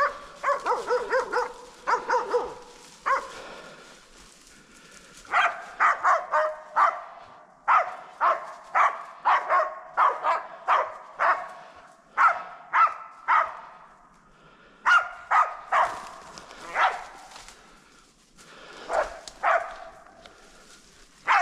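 Hunting Laikas barking at a moose they are holding at bay: runs of sharp barks, several a second, broken by short pauses.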